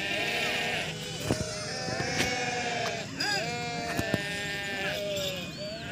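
Several animals bleating over one another in short, overlapping calls, with a few sharp clicks, two of them close together about four seconds in.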